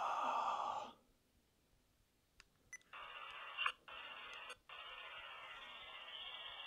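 Handheld digital voice recorder playing back a recording through its small speaker: a short burst of noise, a pause broken by a couple of clicks, then steady hiss from about three seconds in that cuts out twice briefly.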